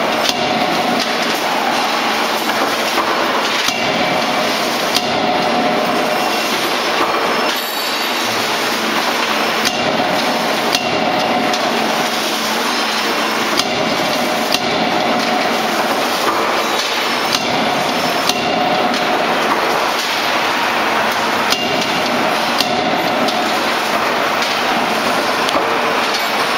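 A 16 kJ CNC die-forging hammer striking glowing steel blanks in the die to forge diagonal pliers. Heavy blows land a few seconds apart over the loud, steady din of the machine and forge shop.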